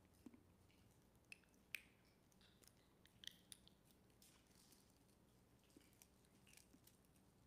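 Near silence with a scatter of faint, short clicks and small handling noises, the sharpest about two and three seconds in.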